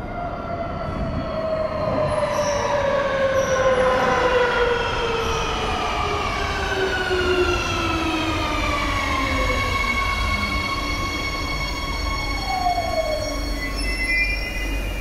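Madrid Metro 3000-series electric train pulling into the station and braking. A whine of several tones falls steadily in pitch for about nine seconds over a steady rumble, then holds level as the train comes to a stop. A few short high tones sound near the end.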